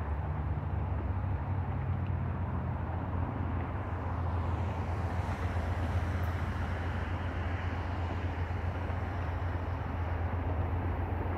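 Diesel locomotives of an approaching freight train, led by an EMD SD70ACe, running with a steady low engine rumble that grows a little louder about four seconds in.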